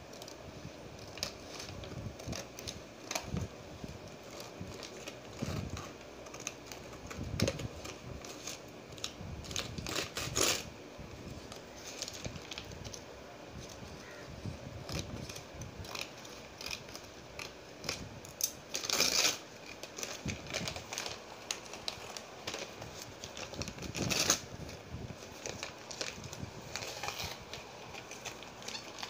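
Scissors snipping through a brown paper courier envelope, with paper rustling and crinkling as it is handled. A few louder bursts of paper noise come about ten, nineteen and twenty-four seconds in.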